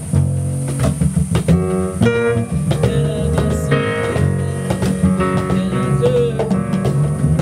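Live jazz band playing an instrumental passage: a low bass line under plucked notes and percussion strokes.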